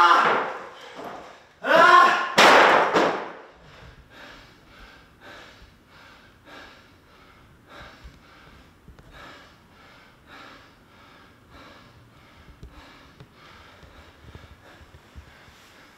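A man cries out loudly and briefly about two seconds in, then pants with quick, regular breaths as he catches his breath after exertion.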